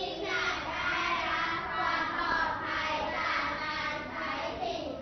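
A group of schoolchildren's voices reciting together in a sing-song, chant-like chorus.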